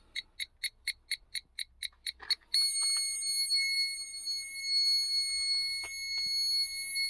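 Reversing parking sensor kit's warning buzzer beeping about four times a second. About two and a half seconds in it changes to one continuous high tone, the signal that an obstacle is very close to a sensor.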